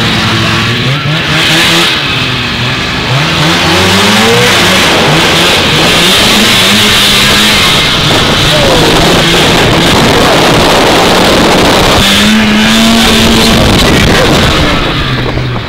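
Vintage two-stroke snowmobile engine revving up and running hard at speed under a loud rushing noise, with its pitch climbing a few seconds in and holding steady near the end.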